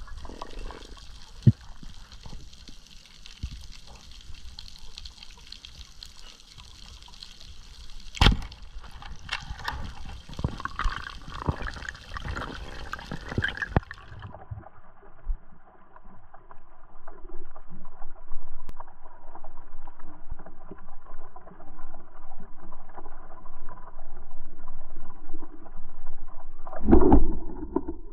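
Underwater sound in a camera housing: a crackling hiss with scattered sharp clicks, which turns abruptly duller about halfway through and grows louder. Near the end, a short heavy thump as a rubber-band speargun fires.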